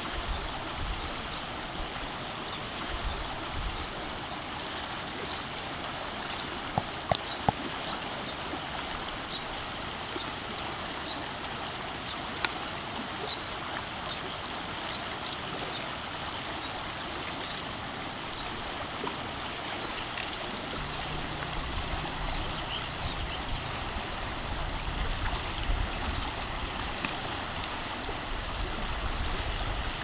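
Stream water running steadily, with a few sharp clicks about a quarter of the way in and a low rumble joining in the second half.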